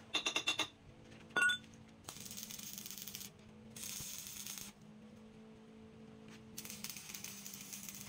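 A quick run of sharp metallic taps and then a single ringing clink, followed by the crackling hiss of a stick arc welder burning on steel in three short bursts of about a second each.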